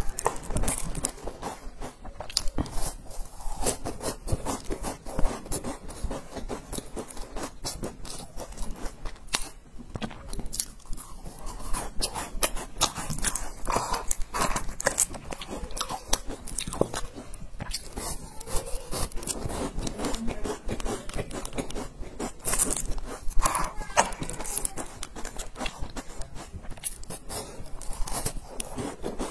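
Close-miked chewing and crunching of large, crumbly sesame-topped cookies: many irregular small crunches through the whole stretch. Now and then there are sips through a drinking straw from a drink carton.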